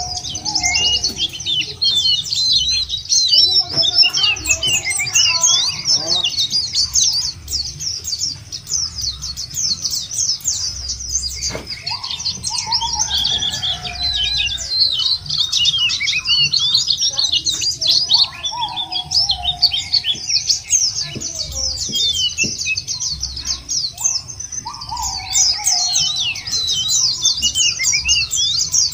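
White-eyes (pleci) twittering in a dense, continuous chorus of rapid, high chirps, as in a lure recording for getting caged white-eyes to sing. A lower, falling whistle cuts in three times over the top, about a dozen seconds in and twice more later.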